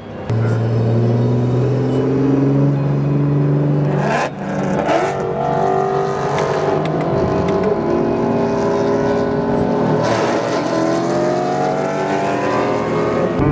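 Sports car engine under hard acceleration through the gears, heard from inside the cabin: the engine note climbs steadily, drops back at each upshift and climbs again, several times.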